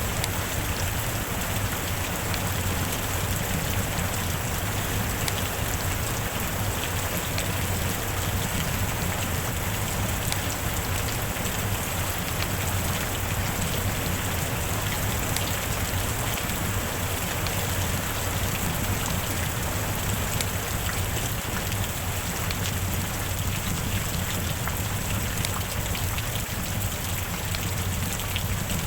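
Steady rain falling, a constant hiss with many individual drops ticking through it.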